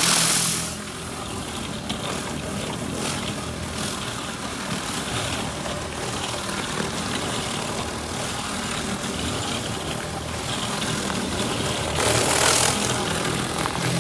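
Pressure washer running steadily: a motor hum under a hiss of spraying water. It is louder in the first moment and again near the end.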